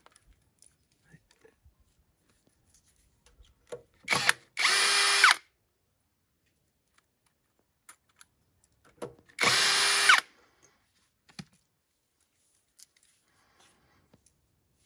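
Cordless drill-driver whirring in two short runs of about a second each, each started with a brief blip of the trigger, unscrewing the bolts of the oil-seal housing on a tractor's axle. Light clicks of the bit and bolts come between the runs.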